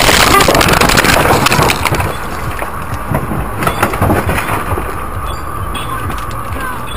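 A car crashing off the road at about 120 km/h. A sudden, loud burst of crunching and scraping impacts lasts about two seconds, then quieter clattering and rushing noise follows as the car slows to a stop.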